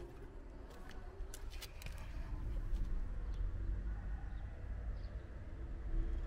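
Outdoor ambience dominated by a low rumble of wind and handling on the microphone, with a few faint clicks early on. A dove coos faintly near the end.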